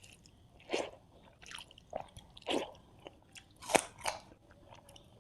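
Close-miked eating sounds: a person biting and chewing food, with a run of short, separate crunches about every half second to second, the loudest a sharp crunch near 4 seconds in.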